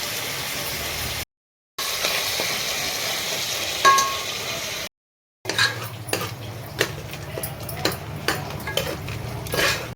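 Onion-tomato masala with mint and coriander frying in oil with a steady sizzle, and a single ringing clink of a metal spoon on the pot about four seconds in. After a cut, the spoon stirs and scrapes against the pan in a run of sharp clicks.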